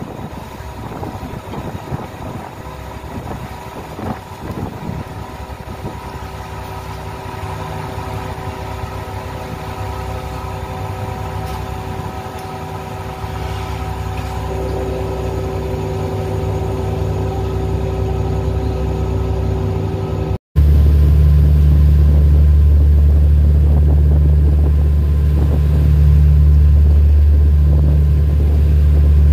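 Boat engine running steadily, a droning hum with several steady tones that slowly grows louder. About two-thirds of the way through, the sound drops out for an instant and comes back as a louder, deeper engine drone.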